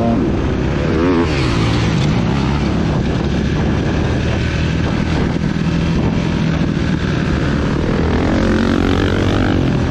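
Dirt bike engine running under way on a motocross track, recorded close up by the bike's onboard camera. The engine note rises and falls as the rider works the throttle and gears, with a clear climb and drop about a second in and another climb near the end.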